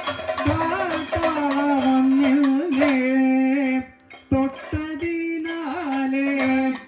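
Music: a voice singing long, wavering held notes over sharp percussion strokes, with a short break about four seconds in.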